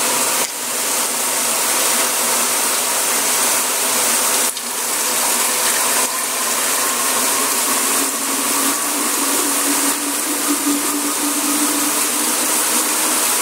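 Filtered water pouring steadily from a plastic Alkanatur filter jug into a glass bottle, a continuous gush. Its pitch rises a little in the second half as the bottle fills.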